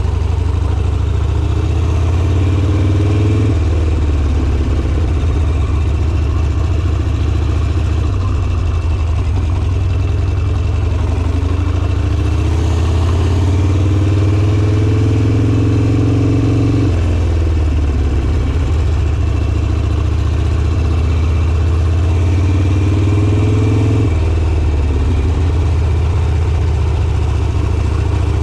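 Harley-Davidson Sportster's V-twin engine running under way, its note climbing in long rises as the throttle opens, then dropping abruptly about two-thirds of the way in and again near the end.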